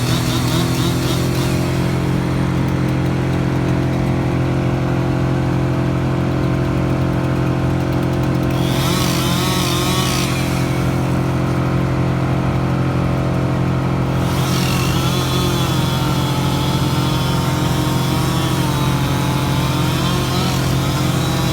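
Engine machinery on a tree-removal job running steadily at a constant speed. A higher, wavering tone joins briefly about eight seconds in and again from about fifteen seconds on.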